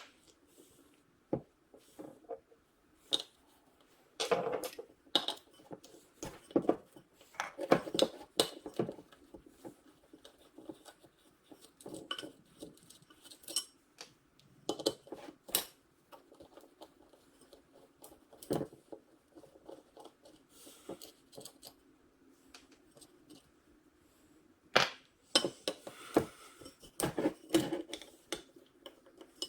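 Irregular metallic clicks, clinks and light knocks of hand tools and parts while a GM alternator is taken apart. There is a quieter stretch about two-thirds of the way through, then a busy run of clinks near the end.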